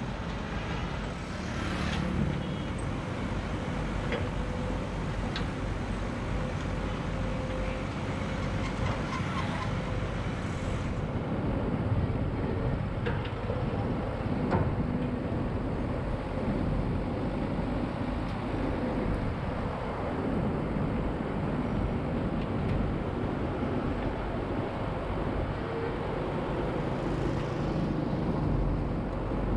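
Steady running of heavy construction machinery, chiefly the diesel engine of a truck-mounted drilling rig, with a few sharp metallic knocks.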